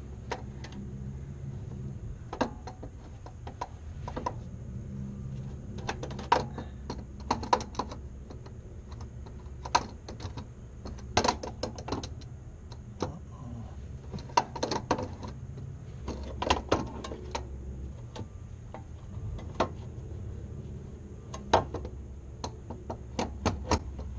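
Irregular metallic clicks and clinks, some in quick little clusters, as a car starter motor is handled and worked into position, with a steady low hum underneath.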